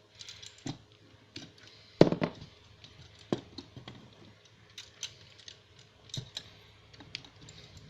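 Scattered small clicks and taps of hard plastic toy parts being handled, with one sharper click about two seconds in.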